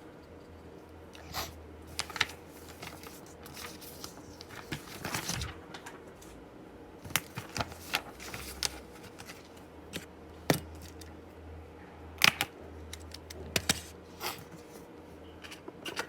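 Irregular clicks, taps and short rustles of small objects being handled, over a low steady hum.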